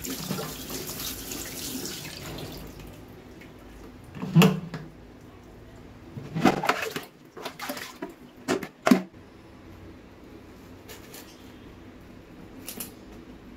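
Tap water running into a plastic basin as goat intestine is rinsed under it, fading out after about three seconds. This is followed by a few sharp clicks and knocks.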